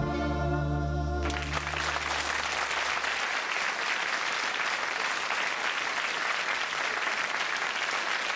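A vocal group with a folk band of accordions and guitars ends a song on a held chord, which breaks off about a second in. Studio audience applause then takes over and continues steadily.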